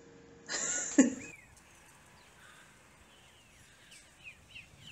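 A blown kiss, a breathy smack about a second in, then faint outdoor background with small birds chirping: several quick chirps toward the end.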